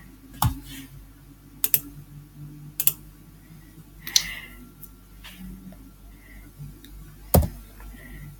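Computer keyboard keystrokes and clicks while editing a document: about half a dozen sharp, irregularly spaced taps, a second or more apart.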